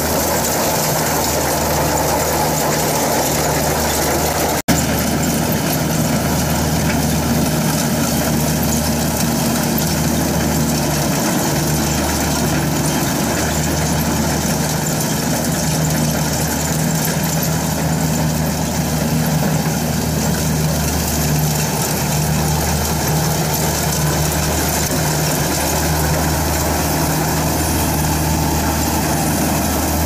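Kubota Pro688Q combine harvester's diesel engine running steadily as the machine cuts rice, a dense continuous mechanical drone with a low hum underneath. The sound drops out for an instant about four and a half seconds in.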